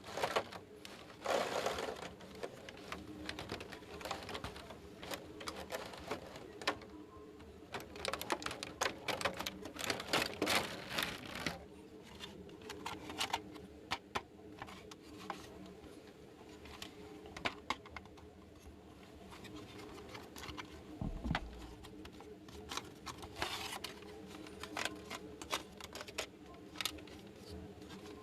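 Small plastic toy pieces being handled and fitted together: irregular clicks and taps with short rustles, in busy flurries a couple of times.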